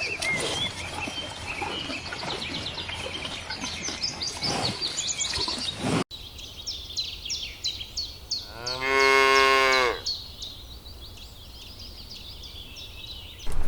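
A cow gives one long moo about nine seconds in, the loudest sound here, while small birds chirp throughout. For the first six seconds a rough background noise runs under the birdsong and then cuts off abruptly.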